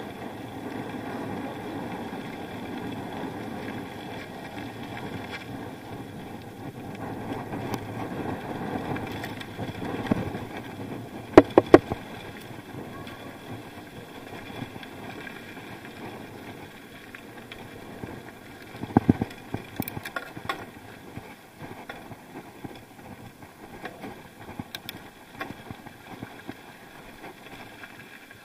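Bicycle ride heard from an action camera: a steady rolling noise with sharp knocks and rattles. Three loud knocks come in quick succession about eleven seconds in, and another cluster comes around nineteen seconds.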